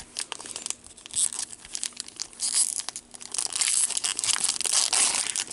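Trading-card pack wrapper tearing and crinkling, with small clicks of cards being handled, growing louder about halfway through.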